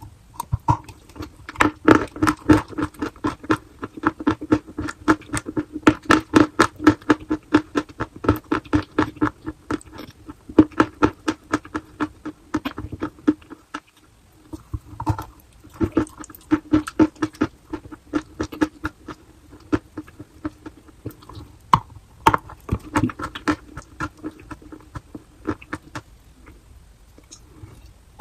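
Close-miked crunching of chalk being bitten and chewed: quick crisp crunches several a second, with a brief lull about halfway through.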